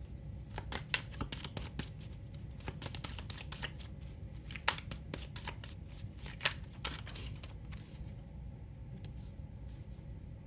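Oracle cards handled and shuffled by hand: a run of soft, irregular card clicks and flicks, thinning out after several seconds, over a steady low hum. Near the end a card is laid down on the table.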